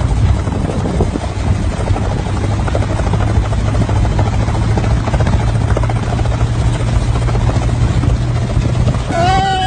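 Gyroplane's engine and rotor running steadily: a steady low drone with rapid chopping. Music comes in near the end.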